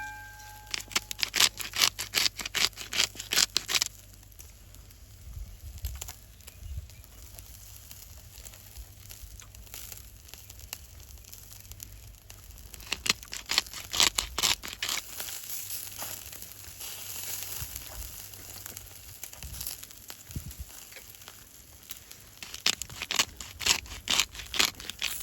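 Crackling and popping in three bursts of a few seconds each, near the start, in the middle and near the end, from food sizzling over a campfire, with a faint hiss between the bursts. A brief clear ringing tone sounds right at the start.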